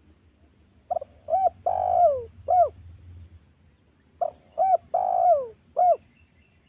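Spotted dove (tekukur) cooing: two identical phrases of four notes, about three seconds apart, the third note in each longer and falling in pitch. It is a lure call, used to draw wild spotted doves in.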